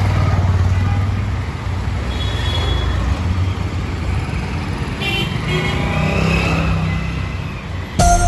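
Street traffic with motorcycle engines running close by, a steady low rumble, and a few short horn toots in the background about two and five seconds in. A bright musical sting starts right at the end.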